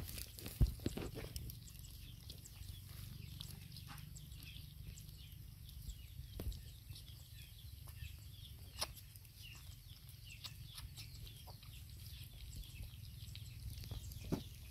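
Young puppies squirming on dry straw and leaves: faint scattered rustles and clicks, with a few sharper ticks, over a low steady hum. Faint, high, short animal calls come and go.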